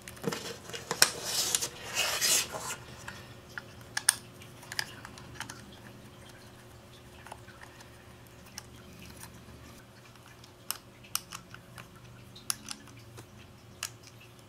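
Handling noise from a camcorder being fitted into a hard-plastic underwater housing: a rustling scrape about a second in, then scattered small clicks and taps of plastic parts.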